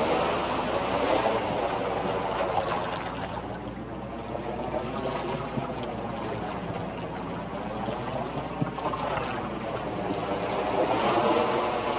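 A steady rushing noise with a slowly sweeping, hollow phasing sound, swelling a little near the end.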